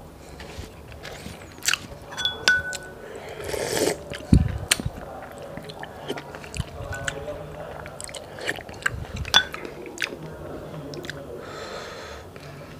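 Close-miked mouth sounds of eating rice and gelatinous beef skin from balbacua stew: chewing, smacking and many small clicks, with a dull thump about four seconds in.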